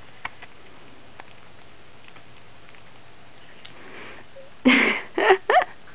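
A baby sucking watermelon through a mesh feeder: a few faint wet clicks, then three short, loud, breathy snuffling noises near the end.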